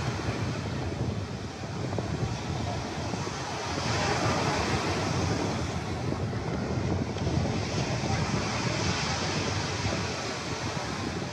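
Small waves breaking and washing up a sandy beach, the wash swelling twice, with wind buffeting the microphone.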